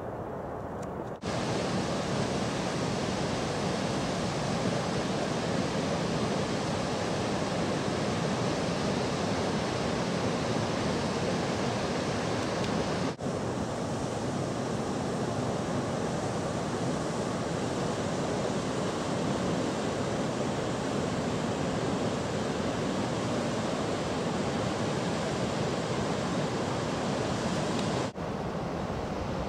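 Water rushing through the open gates of a river barrage: a steady, loud rush of noise that comes in suddenly about a second in and breaks off for an instant twice.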